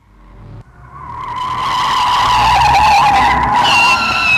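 Car tyres screeching in a long skid, swelling from silence to loud, the screech sagging slightly in pitch and then taking on a higher squeal near the end.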